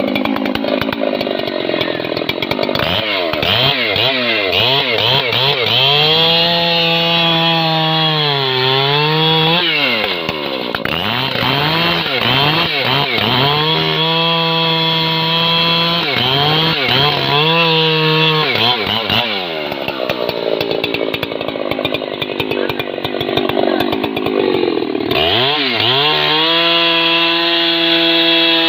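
Husqvarna 3120XP big-bore two-stroke chainsaw sawing into the trunk of a rain tree (trembesi): the engine is held at full throttle for several seconds at a time, its pitch sagging once as the chain bogs in the cut. It drops back to lower, rougher running in between.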